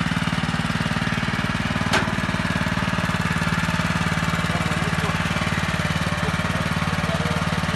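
Honda GX200 single-cylinder four-stroke engine on a walk-behind two-wheel tractor running steadily at a constant speed, with an even pulsing beat. A single sharp click sounds about two seconds in.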